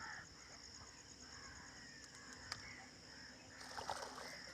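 Crows cawing faintly over a steady high-pitched drone of crickets and insects, with a fast pulsing trill in the first part.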